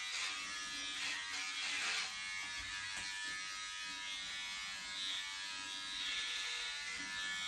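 Electric hair clippers running steadily with an even buzz as they are pushed up through a man's hair.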